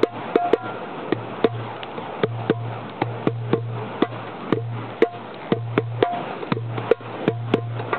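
Percussion-driven music: sharp drum knocks several times a second over a low bass note that pulses on and off.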